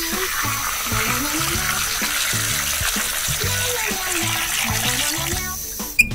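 Water running from a kitchen tap into a steel saucepan, a steady hiss, over background music. A sharp click sounds about six seconds in.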